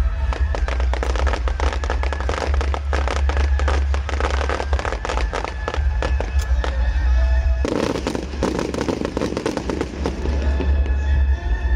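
Fireworks going off in rapid strings of cracks and pops, over loud music with a heavy bass. The firing thickens into a dense barrage from about eight seconds in until about ten and a half seconds in.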